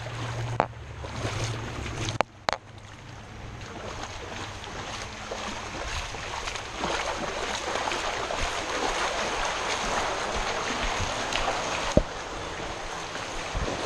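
Creek water running through a concrete culvert, a steady rushing that grows louder after the first couple of seconds. There are a few short knocks, the sharpest near the end.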